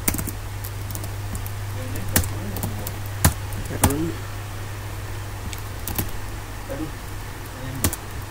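Single keystrokes on a computer keyboard, a few seconds apart and irregular, as code is entered with autocomplete, over a steady low hum.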